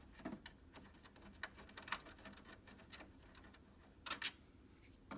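Faint, scattered small clicks and taps of a screwdriver and loose screws being handled against the plastic case of a Macintosh Plus, with a sharper double click about four seconds in.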